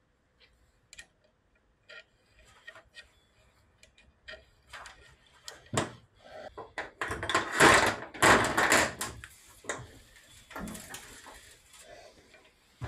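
Hands handling the metal parts of a mower's front-axle gearbox on a steel workbench: scattered light clicks and knocks, then a louder, busier stretch of handling noise about seven to nine seconds in.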